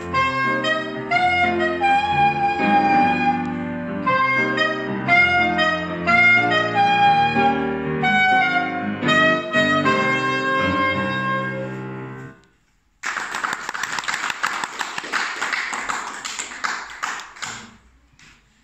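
Alto saxophone playing a melody over piano chords, the piece ending about twelve seconds in. After a short pause, applause for about five seconds, dying away near the end.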